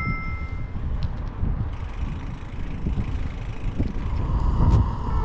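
A loud, uneven low rumble, with no speech or music.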